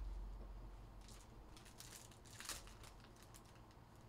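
Faint rustling and light clicks of trading cards and packs being handled, with one slightly louder rustle about two and a half seconds in.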